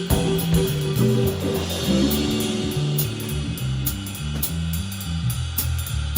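A guitar, bass guitar and drum kit trio playing an instrumental together: the bass moves through a line of separate low notes under guitar notes, with the drums keeping time on evenly spaced cymbal strokes.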